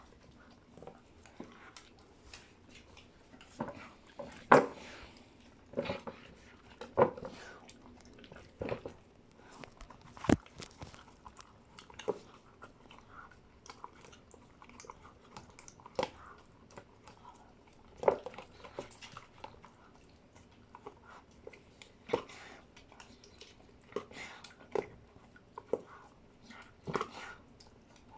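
A dog chewing and crunching its food, with irregular sharp crunches, the louder ones every second or two.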